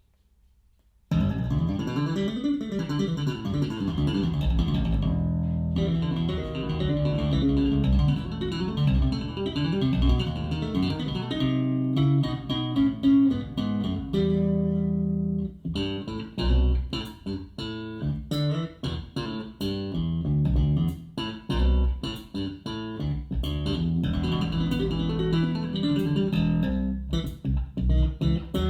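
Instrumental music led by a prominent bass guitar, with strong deep bass, played over a hi-fi system with a REL subwoofer and heard in the room. It starts about a second in after silence and has a short pause about halfway through.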